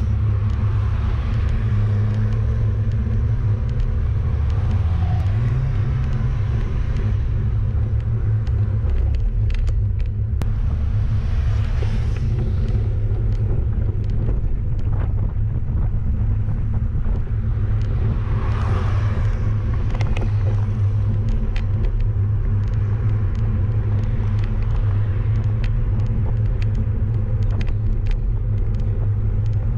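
Steady low rumble of wind and road vibration on a bicycle-mounted GoPro, riding a road bike at about 15 km/h. Scattered light clicks run through it, and two swells of rushing noise come about 12 and 19 seconds in.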